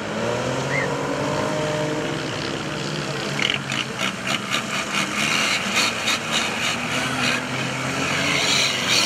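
Off-road race trucks' engines revving hard under load as they push through deep mud, their pitch rising and falling. From about three and a half seconds in, a rapid crackling clatter joins the engine sound.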